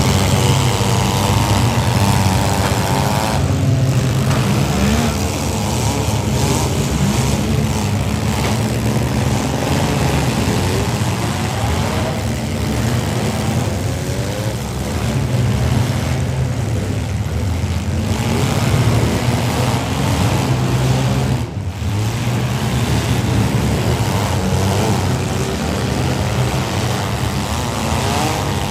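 Several demolition-derby minivan engines running and revving at once, loud and continuous, their pitch rising and falling as the drivers push and ram.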